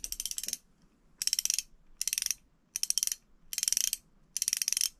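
Shimano Vanquish C2000S spinning reel's drag clicking as the spool is pulled round against the drag: six short bursts of rapid, fine clicks, a little under a second apart.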